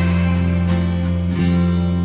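Background music carried by a plucked guitar, with held bass notes under the chords.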